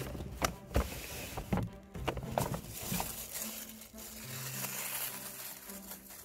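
Handling noise from a phone being carried and bumped against clothing: a run of knocks and rustles in the first couple of seconds. Quiet background music with low held notes follows.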